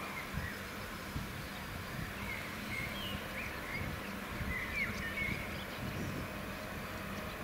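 Small birds chirping in short rising and falling calls, repeated here and there, over a steady low outdoor rumble.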